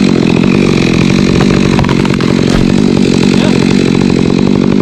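Gas chainsaw engine running steadily.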